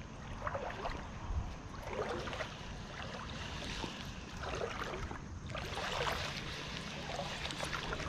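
Shallow creek water sloshing and trickling, with soft irregular swishes every second or two.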